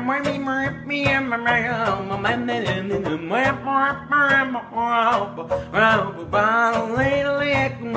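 Cello bowed in an improvised country-blues tune, with the cellist vocalizing wordlessly over it in rising and falling phrases.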